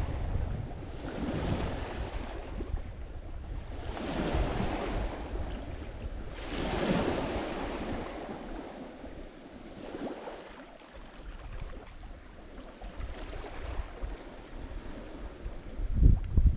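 Lake Michigan waves washing onto the shore, surging in every two to three seconds. Wind buffets the microphone with a low rumble that is strongest at the start and near the end.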